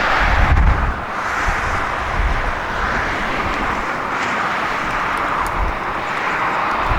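Strong gusty storm wind rushing past and buffeting the microphone, swelling and easing in gusts with low rumbles about a second in and again near the end.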